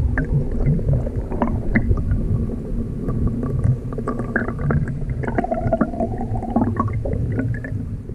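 River water heard underwater through a submerged camera: a low, gurgling rumble with many scattered clicks and ticks, fading near the end.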